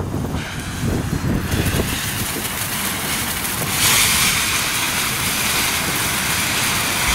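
TNT Fireworks Frosty Night ground fountain hissing as it sprays sparks. The hiss starts softly and becomes a louder, brighter spray about four seconds in.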